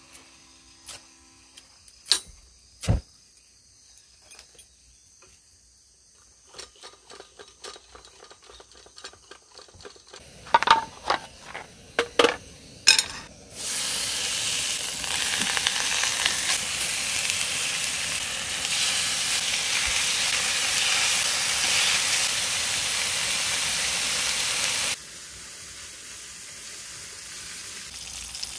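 Meat sizzling loudly in a hot frying pan on a camp stove, starting suddenly about halfway through as the meat goes into the pan and dropping to a quieter sizzle near the end. Before that come scattered clicks and knocks from the stove and pan being handled.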